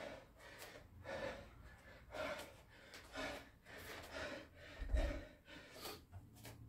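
A man breathing hard and fast from the exertion of burpees and kettlebell thrusters, about one breath a second. A dull low thump comes about five seconds in.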